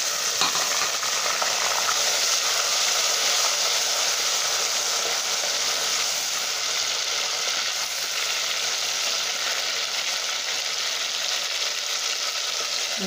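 Salted lemon pieces sizzling steadily in hot sesame oil in a clay pot, stirred with a wooden spatula.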